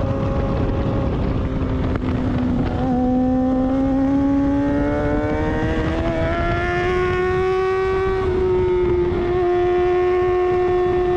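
Sport motorcycle engine heard from an onboard camera while lapping a track. Its note dips briefly about two to three seconds in, then rises steadily for several seconds as the bike accelerates out of a turn, and levels off near the end. Wind rushes over the microphone throughout.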